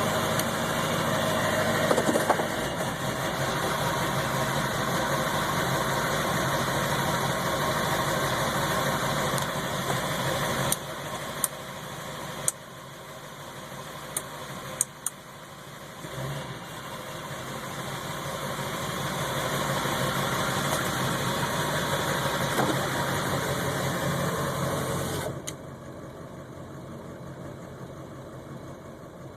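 Ford 7.3 Power Stroke turbo-diesel V8 idling, its loudness dipping and swelling, with a few sharp clicks in the middle and an abrupt drop in level a few seconds before the end. The owner reports the idle running higher than normal and rough, and asks whether a bad ICP sensor or fuel pressure regulator is to blame.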